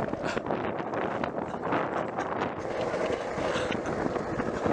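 Wind rushing over the microphone, with irregular knocks and clatter running through it.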